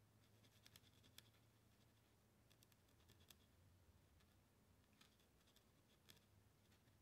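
Faint scratchy taps of a marker tip dabbing short strokes onto textured canvas, in a few small clusters over near-silent room tone.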